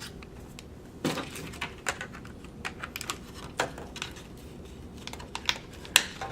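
Irregular light clicks and taps of the old RAM modules being fitted back into their memory-module package and the package being closed, with one sharper click near the end.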